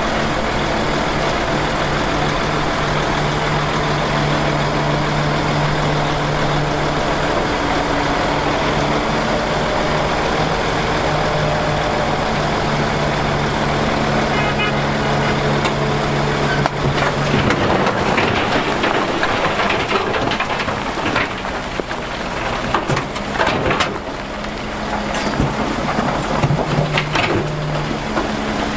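Heavy diesel construction machinery running steadily. A bit over halfway through, the sound turns rough and uneven, with irregular clattering and crunching.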